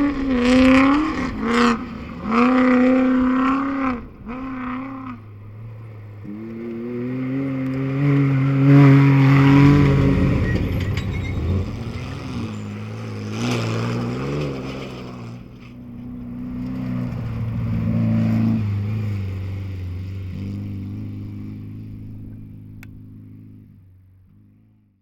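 Off-road race vehicles' engines revving hard and running by, rising and falling in quick bursts in the first few seconds, loudest around nine seconds in, then fading away to silence near the end.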